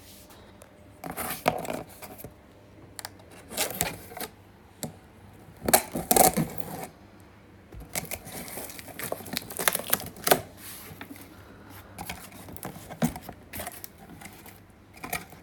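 A cardboard box and its packaging being opened and handled: irregular tearing, rustling and scraping, with a few sharp knocks.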